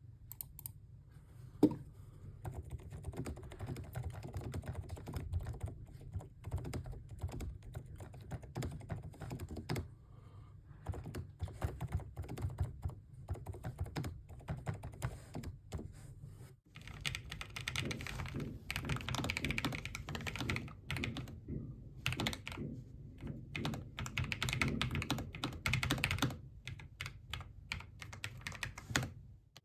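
Hard, fast typing on a Lofree Flow Lite low-profile mechanical keyboard: a dense run of key clicks on its Hades switches, then, after a brief pause about two-thirds through, on its Specter switches, which sound brighter.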